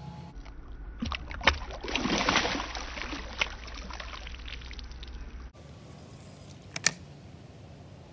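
Largemouth bass splashing into the water as it is let go beside a canoe: a burst of splashing and spray starting about a second in and dying away over a couple of seconds. A single sharp knock follows near the end.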